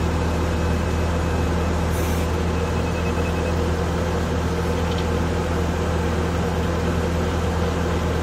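Bobcat A300 skid-steer loader's diesel engine running steadily at an even speed, heard close from the cab, while the auger drive holds a screw pile in place.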